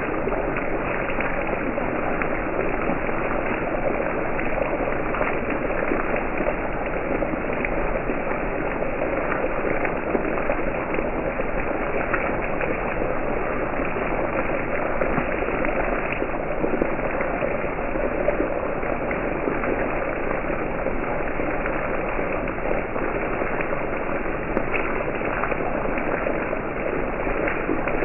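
Beef tournedos frying in fat in a cast-iron skillet: a steady sizzle with fine, constant crackling.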